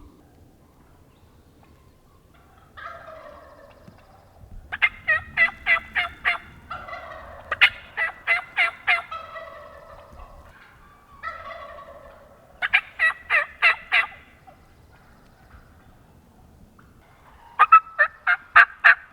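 Wild turkeys calling from a flock: four runs of quick, evenly spaced notes, about five a second, with lower, rougher calls between them.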